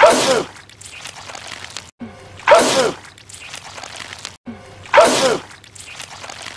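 A man's wet, explosive sneeze, the same one looped three times about two and a half seconds apart. Each sneeze is preceded by a short rising 'ah' breath.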